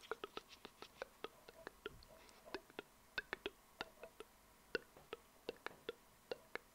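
Wet mouth sounds close to a foam-covered microphone: soft tongue and lip clicks and pops, irregular, several a second.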